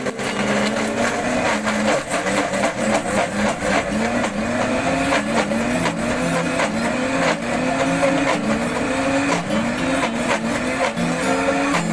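Countertop blender running at high speed, crushing ice into a milky drink. Its motor pitch keeps sweeping upward, more than once a second, as the ice churns in the jar.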